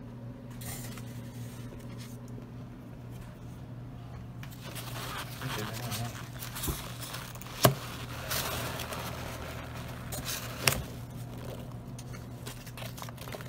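Hands rustle and scrape through foam packing peanuts in a styrofoam-lined shipping box and handle a plastic deli cup, starting a few seconds in, with two sharp knocks, the louder one a little past halfway. A low steady hum sits underneath.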